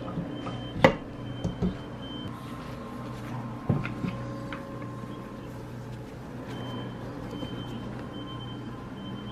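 Hard plastic clicks and knocks as a food processor's blade is lifted off its spindle in the bowl, the loudest a sharp click about a second in, then a single knock as a nut-milk bag of almond pulp is set into the bowl, over a steady low hum.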